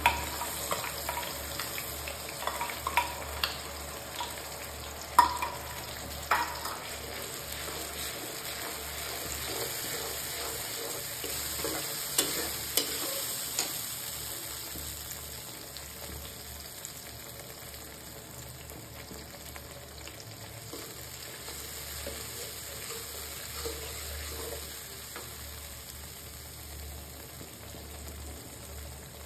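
Ground mustard masala paste sizzling in hot oil with fried onions in an aluminium kadai, being stirred and fried. Metal utensils knock and scrape against the pan a number of times in the first seven seconds and again briefly around the middle, over a steady sizzle.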